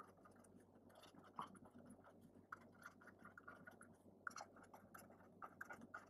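Faint scratching and light tapping of a pen writing on paper, in short irregular strokes.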